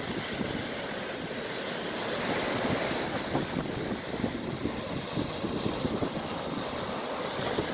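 Small waves breaking and washing up a sandy beach at high tide: a steady rushing surf that swells a little a few seconds in. Wind buffets the microphone with low rumbling gusts throughout.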